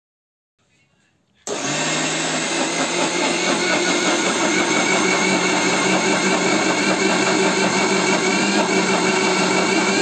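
Electric mixer grinder switched on about a second and a half in, its motor then running steadily with a high whine as the blade grinds lentils with a little water in the large steel jar.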